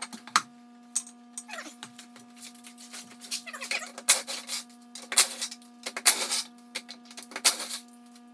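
Cordless impact wrench in four short bursts, spinning lug nuts off a golf cart wheel, with clatter and knocks of the wheel and tools being handled in between.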